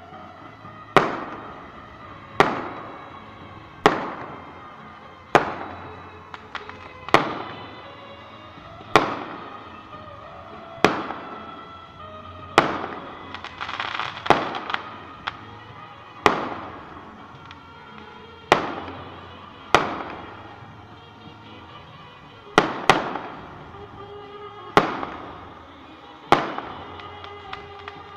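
Fireworks going off one after another: a sharp bang about every one and a half to two seconds, each ringing out and dying away over about a second, with two bangs close together a little past the middle.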